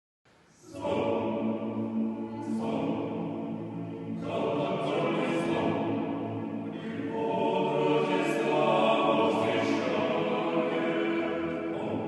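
Men's choir singing a Christmas carol (koliadka) a cappella, coming in a moment after the start with full sustained chords in phrases.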